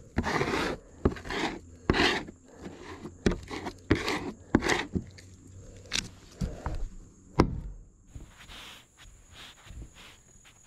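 Repeated short scraping strokes of a hand spreader working carpet adhesive across a plywood deck, mixed with footsteps on the boards. A single sharp knock comes about seven seconds in, and the sounds then thin out and grow quieter.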